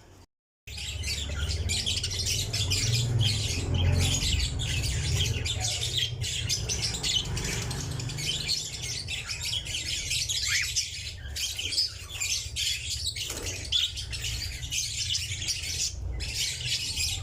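Lovebirds chirping in a dense, continuous chatter over a steady low rumble. It starts abruptly just under a second in.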